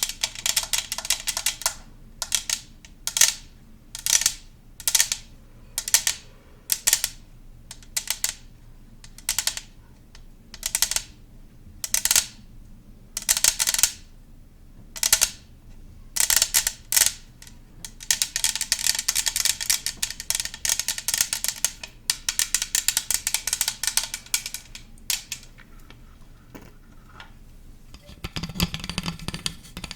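Close-miked ASMR trigger sounds: a run of short, crisp bursts about one a second, then a denser crackling stretch lasting several seconds, with a lower sound coming in near the end.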